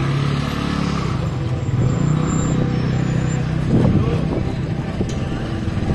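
Small engines of a motor scooter and an auto-rickshaw running close by in street traffic, a steady low engine hum throughout.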